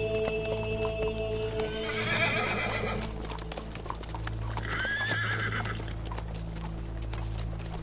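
Horses' hooves clip-clopping as the riders move off, with a horse whinnying about two seconds in and again around five seconds, over steady low background music.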